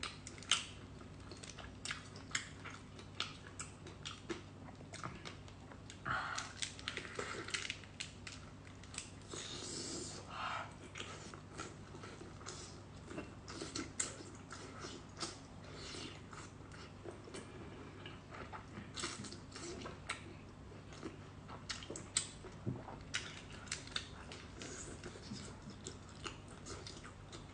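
Close-miked eating: a person biting and chewing gooseneck barnacles, with many small wet clicks and smacks and a few longer noisy stretches of sucking.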